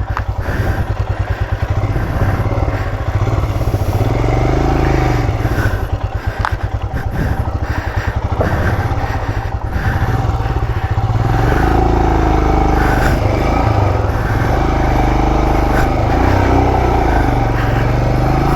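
Motorcycle engine revving hard under load as the bike climbs a rocky off-road trail. The revs rise and fall repeatedly, loudest in the second half.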